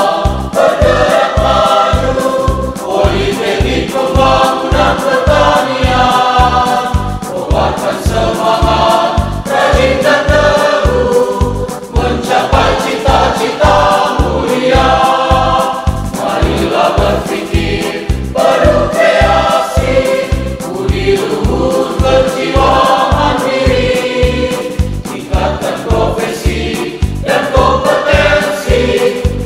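Choir singing an Indonesian-language march song over a backing track with a steady beat of about two a second.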